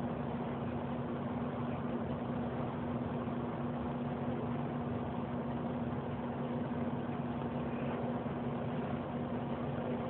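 Steady mechanical hum with a constant low tone over a faint hiss, unchanging throughout.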